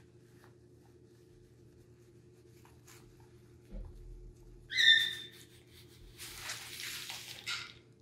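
Blue-and-gold macaw giving one short, loud squawk about halfway through. Then about a second and a half of rustling, feathers moving while the bird is stroked.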